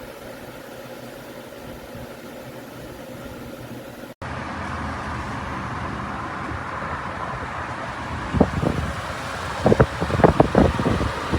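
Steady rush of air from a Lasko outdoor tower fan running, louder after an abrupt cut about four seconds in. From about eight seconds in, gusts buffet the microphone.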